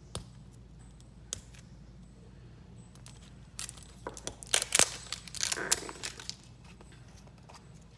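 Plastic toy blind-bag packet being torn open along its tear strip and crinkled: a few scattered clicks, then a dense run of sharp crackles and rustling in the middle.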